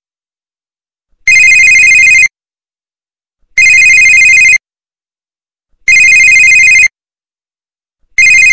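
Telephone ringing: loud, trilling rings about a second long, repeating roughly every two and a quarter seconds with silence between them. Four rings, the last starting near the end.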